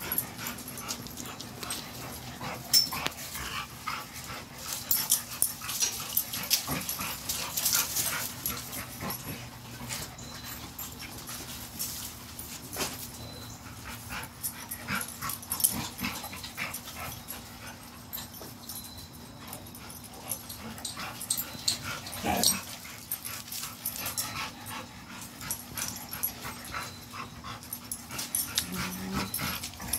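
Dogs play-fighting, with irregular scuffling and clattering throughout, heavy breathing, and a couple of brief low dog vocal sounds, one a little past halfway and one near the end.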